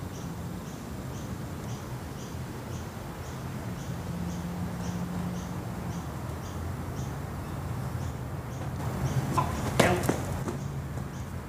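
A quick whoosh about nine to ten seconds in. Before it there is a faint steady background with a soft high chirp repeating about three times a second.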